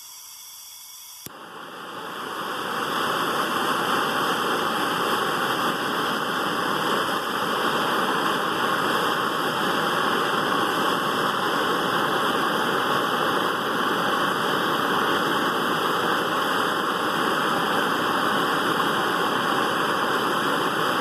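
Gas flame hissing steadily as it heats a lighter flint wrapped in its spring until it glows red. The hiss comes up about a second in and is at full strength by about three seconds.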